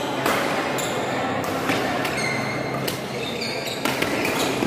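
Badminton rally: several sharp cracks of rackets striking the shuttlecock a second or more apart, over the background noise of an indoor sports hall.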